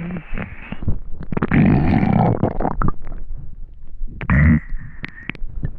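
Hungry human stomach growling and gurgling: three rumbles, a short one at the start, the longest from about one and a half to three seconds in, and another short one about four seconds in, with small clicks between.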